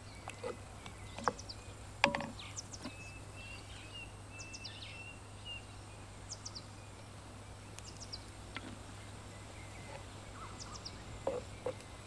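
Wooden spoon stirring thick baked beans in a cast iron Dutch oven, with two sharp knocks of the spoon against the pot about one and two seconds in. Small birds chirp now and then in the background.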